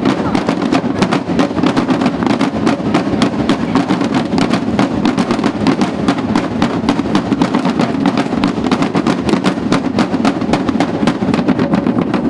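Drum band of snare, tenor and bass drums playing together: loud, fast, steady drumming with dense sharp snare strokes over deep bass-drum beats.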